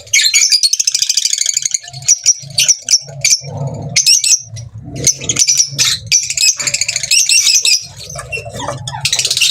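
A colony of green Fischer's lovebirds chattering together, many high shrill calls overlapping, with wings flapping now and then.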